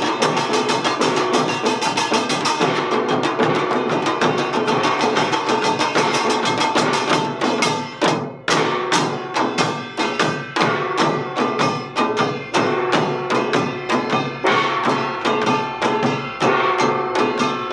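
Samul nori quartet playing Utdari (Gyeonggi-style) rhythm: ringing kkwaenggwari small gong and jing gong over janggu hourglass drums and buk barrel drums in fast, dense strokes. About eight seconds in the playing breaks off for a moment, then resumes with more spaced, regularly accented beats.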